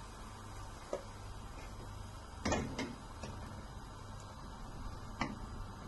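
Quiet kitchen sound while pancakes cook in a non-stick pan on a gas stove: a low steady hum with a few light knocks, the loudest a quick double knock about two and a half seconds in.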